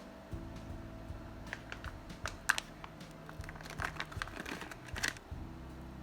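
Crinkling and crackling handling noises: a scatter of small sharp crackles for a few seconds in the middle, the loudest about two and a half seconds in.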